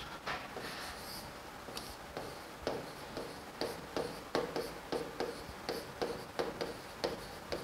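Writing on a dark board with a marker-like pen: a series of short scratchy strokes and light taps as a word is written out.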